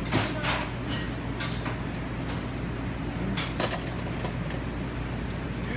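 Dishes clinking and knocking on a kitchen counter as a white ceramic serving bowl is set down, a few separate knocks with the sharpest about three and a half seconds in, over a steady low hum.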